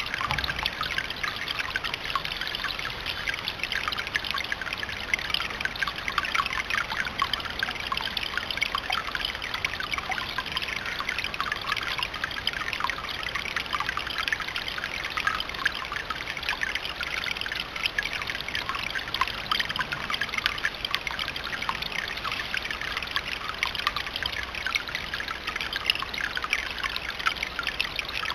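Water trickling steadily in a rock garden fountain: a dense, even patter of small splashes.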